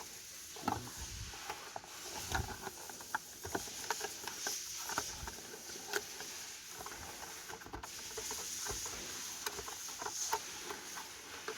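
Scattered light clicks, taps and rustles of small parts being handled: the replacement fuel pump control module and its bracket.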